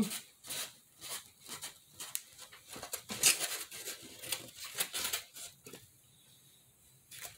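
Thin cardboard being bent and creased by hand: a run of crinkles, taps and rustles that dies away near the end. Dogs bark in the background.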